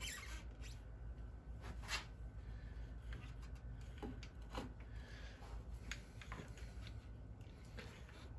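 Faint scattered clicks and rubbing, about seven, from the 2000 Yamaha R6's carburetor bank being worked by hand onto its rubber intake boots to line it up. A low steady hum runs underneath.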